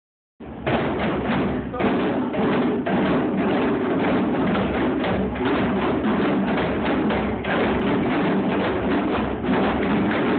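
An ensemble of djembe hand drums played together in a fast, dense rhythm, starting about half a second in.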